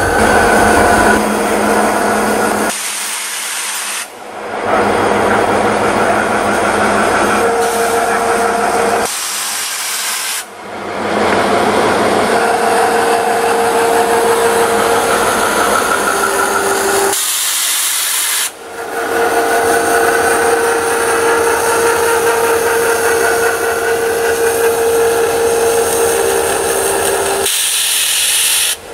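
EMD GP38-2 diesel-electric locomotive moving slowly with a short train of covered hoppers: a steady engine hum with a held tone, under a broad rushing noise. The sound drops out abruptly for a moment four times.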